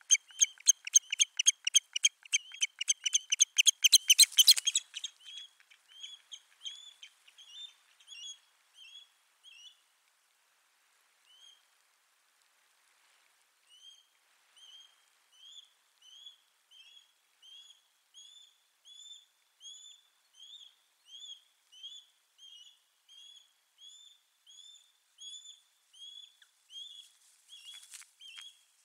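Osprey calling in alarm, typical of a territorial dispute: a loud, rapid run of high piping calls, about five a second, for the first four seconds or so. After a lull, fainter calls come about two a second until the end.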